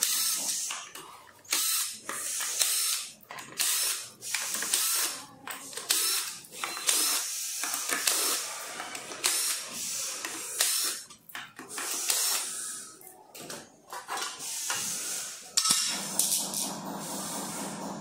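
Cordless drill-driver backing screws out of an electric scooter's metal deck plate: many short whirring runs of a second or less, with short pauses between them as the bit moves from screw to screw.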